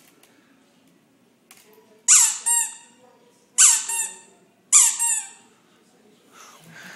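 Three high-pitched squeaks, about a second and a half apart, each dropping in pitch, sounding as a toddler squeezes her nose.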